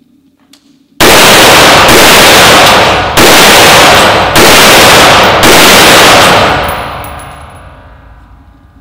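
AR-15 rifle firing 5.56 mm rounds, about five shots roughly a second apart, starting about a second in. The shots are very loud, and each echo runs into the next in an indoor range, ending in a long fading echo.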